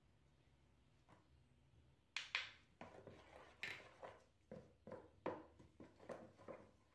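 Wooden spoon stirring batter in a bowl, knocking and scraping against the bowl about three strokes a second, starting a couple of seconds in after two sharp knocks.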